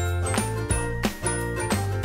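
Background music: a bright, jingly tune with a steady beat and bell-like notes.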